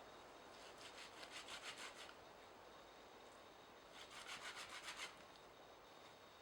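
Hand saw cutting wood in two short bursts of quick back-and-forth strokes, each lasting about a second, with a pause of about two seconds between them.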